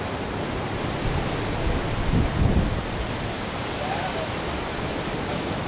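Wind buffeting the camera microphone: a steady rushing noise with a stronger low gust about two seconds in.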